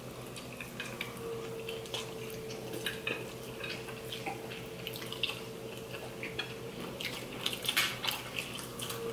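Forks clicking and scraping on plates, with wet eating sounds as fettuccine noodles are slurped and chewed. The small clicks come irregularly, a few louder ones near the end.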